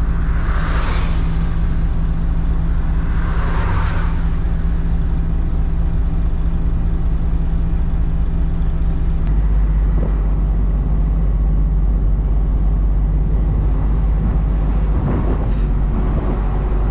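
Diesel engine of a Hino cab-over box truck running under way, heard from inside the cab: a steady low drone with two brief whooshes in the first few seconds, and the engine note shifts about nine seconds in.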